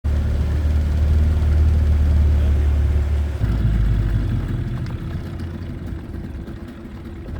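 A boat motor running with a steady low hum. About three and a half seconds in its note drops, and it then eases off and grows quieter, as if throttling back.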